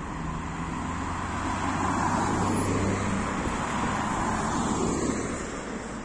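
A car driving past close by on a busy road: tyre and engine noise swells to its loudest around two to three seconds in, then eases off, over steady traffic noise.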